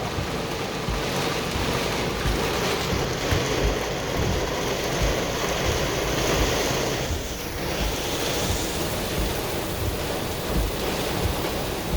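Strong gusting storm wind with heavy rain, the wind buffeting the microphone in low thumps. It eases briefly about seven seconds in.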